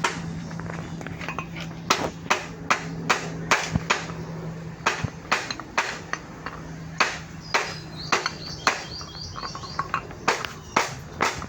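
Hammer blows struck at an irregular pace, roughly two a second, starting about two seconds in, some leaving a brief metallic ring, over a steady low hum.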